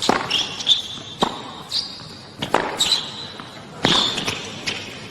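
Tennis rally: the ball popping off racquet strings and bouncing on the court, a string of sharp knocks about half a second to a second apart, with short high squeaks among them.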